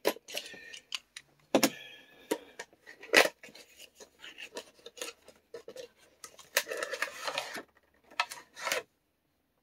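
Plastic and cardboard packaging of HeroClix booster packs being handled and opened: crinkling and rustling broken by several sharp clicks and taps as the plastic figures and trays are knocked about.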